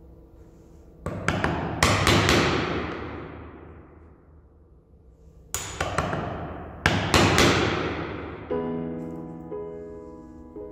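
Wooden mallet striking a wood chisel to chop a notch across a softwood board. The blows come in two quick bursts, one about a second in and another around six seconds in, over background music.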